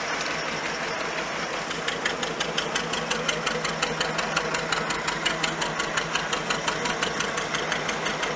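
The engine of a 1909 Daimler TB22 veteran car idling, with an even, rapid beat of exhaust pulses that grows more distinct about two seconds in.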